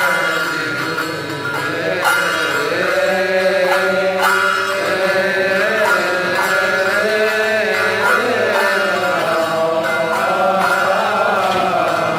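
Coptic Orthodox liturgical hymn chanted in a long melismatic line, the voice holding and slowly bending each note without breaking into separate words.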